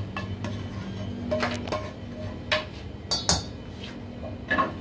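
Cookware clatter: a frying pan knocked and scraped against a stainless steel bowl as sautéed vegetables are emptied into it, then several sharp clinks, one with a brief metallic ring about three seconds in. A steady low hum runs underneath.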